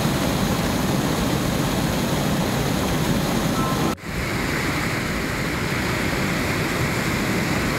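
Floodwater rushing over a river causeway in a steady, loud roar of moving water. The sound breaks off for an instant about four seconds in.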